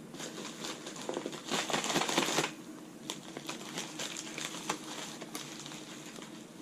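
Packaging crinkling and rustling as it is handled, loudest around two seconds in, then scattered light clicks and taps.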